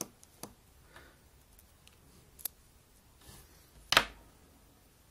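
Small metallic clicks from a precision Phillips screwdriver working a tiny screw out of an iPhone 4 logic board, a few scattered ticks. About four seconds in comes one much sharper tap, louder than the rest.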